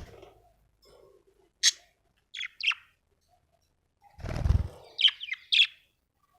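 Budgerigar chirping in short, sharp calls: one about a second and a half in, a quick pair a little later, and a run of three or four near the end. A brief loud rustle comes just before that last run.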